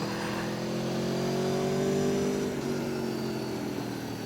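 Aprilia Tuono V4 1100 RR's V4 engine pulling under throttle, its pitch rising steadily for about two and a half seconds, then dipping abruptly and falling away as the throttle closes, with wind rush on the onboard microphone.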